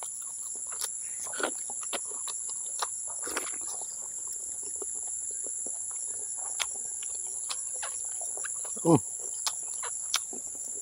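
A steady high trill of field insects, with scattered wet clicks and smacks from chewing cow skin dipped in chili sauce, and a short vocal grunt about nine seconds in.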